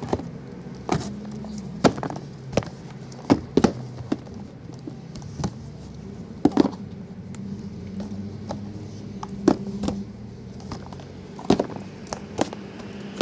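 Shrink-wrapped cardboard boxes of baseball cards being handled and set down, a series of sharp taps and knocks at irregular intervals over a steady low hum.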